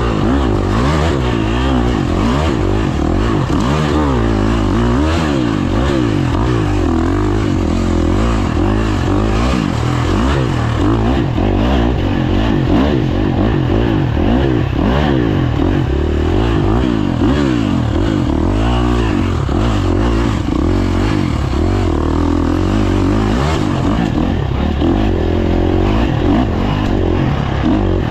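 Off-road dirt bike engine revving up and down continuously, heard from an onboard camera while racing, with frequent short knocks and rattles from the rough ground.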